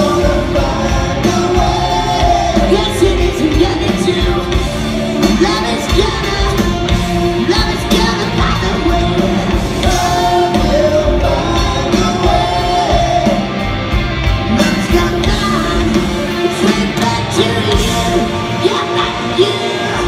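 Live rock band playing a ballad with a male lead singer over guitars and drums, heard from the audience in a large hall.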